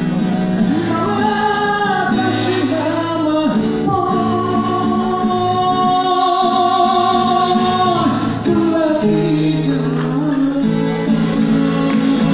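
A man singing live with acoustic guitar accompaniment. Midway he holds one long note with a slight waver.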